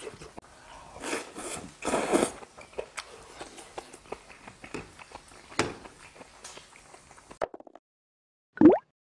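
Close-up chewing and wet mouth sounds of a man eating grilled beef intestines, with scattered smacks and slurps. About 7.5 s in the sound cuts out, then a brief gliding sound-effect sting plays near the end, the loudest sound here.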